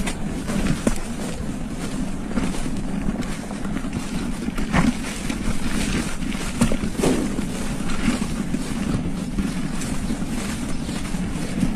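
Wind rushing over the microphone of a camera on a moving bicycle, with a steady low rumble and a few faint knocks.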